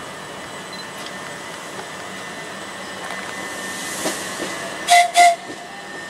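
Electric multiple-unit train running in with steady running noise, then its horn sounding two short blasts in quick succession near the end.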